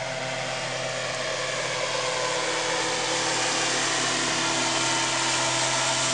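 Engine of an ultralight flying boat, a motorised hang-glider wing over a rubber raft, droning steadily in flight and growing louder as it approaches.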